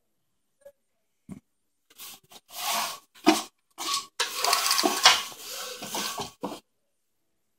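Horizontal window blind slats rattling and rustling as they are pushed aside and rub against the phone, in several bursts starting about two and a half seconds in and stopping about a second before the end.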